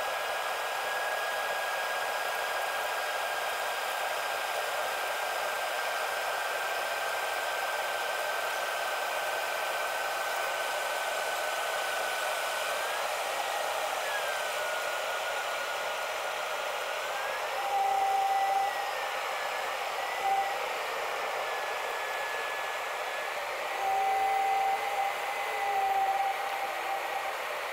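Airliner cabin noise in flight, sped up: a steady rushing hiss with a high whining engine tone that holds level and then slides up and down several times from about halfway through. A few short, louder tones come in near the end.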